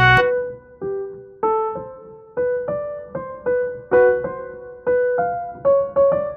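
Background music: a gentle melody of single piano notes, each struck and left to fade, about two to three a second.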